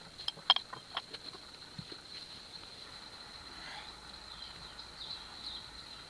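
A heavy backpack loaded with weights being handled and shouldered: a quick run of sharp clicks and knocks in the first second or so, then softer rustling, over a faint steady high whine.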